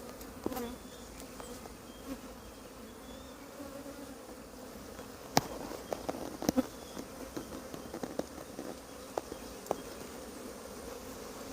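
Honeybees buzzing steadily around an open hive, with a few sharp clicks in the second half.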